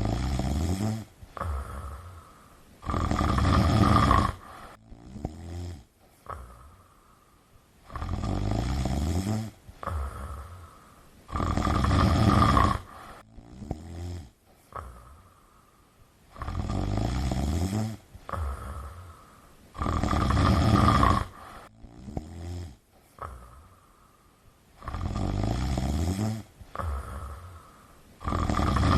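Scottish Fold cat snoring in its sleep: rasping snores, each lasting a second or two, repeating about every four seconds.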